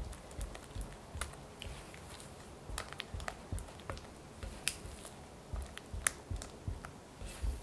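A silicone spatula beating soft cream cheese frosting in a glass bowl. It makes irregular sticky smacks and light clicks, several a second, as the spatula slaps through the cheese and scrapes the glass.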